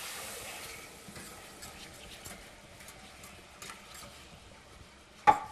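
Butter-and-flour roux sizzling in a saucepan, dying down as cold milk is poured in, then a wire whisk ticking lightly against the pan as the sauce is stirred. One sharp knock near the end.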